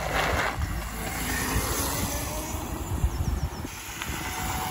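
A 2000 W 48 V electric pocket bike riding by on a paved path: a light whir of motor, chain drive and small tyres, with wind rumbling on the microphone.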